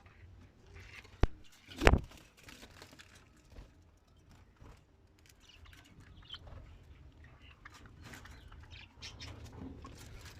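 Budgerigar chicks giving short, scattered cheeps. Two sharp knocks, about a second and two seconds in, are the loudest sounds.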